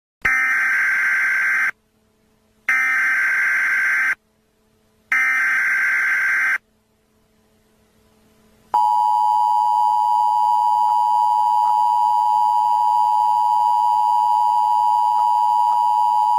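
Emergency Alert System activation: three bursts of SAME digital header data, each about a second and a half with short gaps, then the EAS two-tone attention signal, a steady tone held for about eight seconds.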